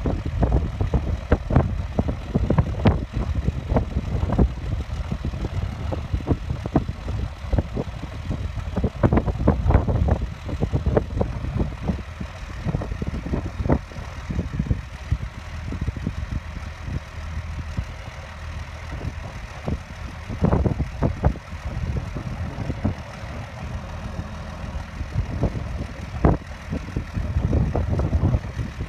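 John Deere S-series combine running, a steady low rumble with irregular sharp bursts of noise over it.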